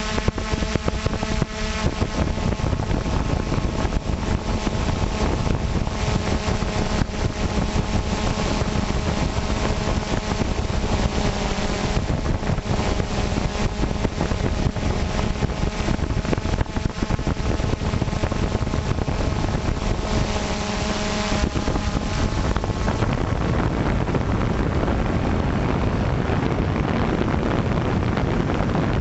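Electric motors and propellers of an FPV model aircraft running steadily, picked up by the onboard camera, with wind rushing over the microphone. About three quarters of the way through, the motor whine drops away and the wind noise takes over.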